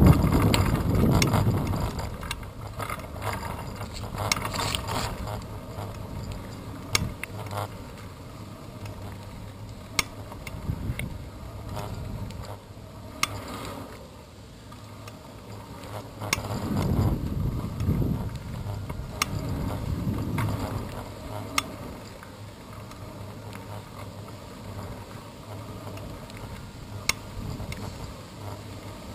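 Bicycle riding along, heard from a handlebar-mounted camera: the freewheel ticks as it coasts, with sharp clicks and rattles from bumps in the road. Gusts of wind buffet the microphone near the start and again past the middle.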